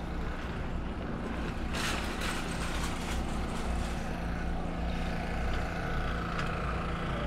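Elevated #6 subway train running on the overhead track, a steady rumbling hum with a burst of clattering about two seconds in and a thin, high squeal later on.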